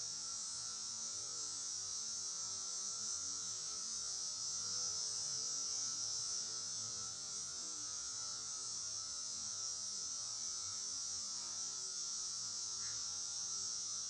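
Steady high-pitched hiss with a faint, even hum underneath.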